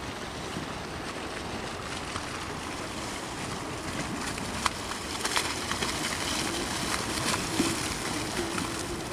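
Swollen mountain river in flood, thick with mud, rushing steadily, with a few brief clicks around the middle.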